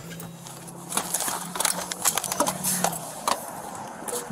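Irregular clicks and rustling of clothing and gear rubbing on a body-worn camera as the officer moves on foot, with a low steady hum that stops about three seconds in.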